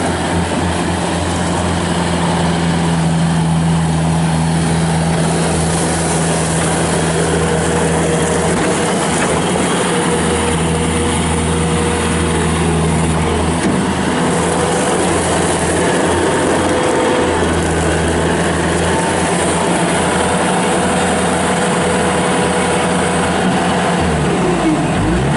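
2007 Bobcat S330 skid steer loader running: a steady diesel engine drone that shifts in pitch partway through as the machine is worked, and drops in speed near the end.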